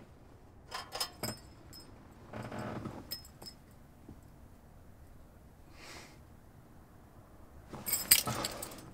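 Light metallic clinks and jingles in a few short clusters, the loudest near the end, with soft rustles in between as hands move around the car's cabin.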